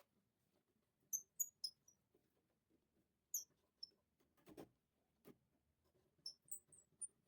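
Faint, short, high-pitched chirps in small clusters, about ten in all, with a soft knock about halfway through.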